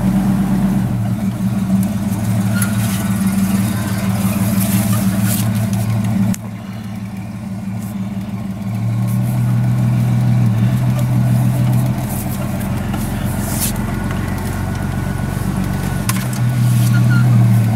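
A 1987 Chevy S10 pickup's 4.3 V6 engine, fitted with a four-barrel carburettor, runs steadily as the truck drives, heard from inside the cab. The engine note dips about six seconds in and picks up again a couple of seconds later.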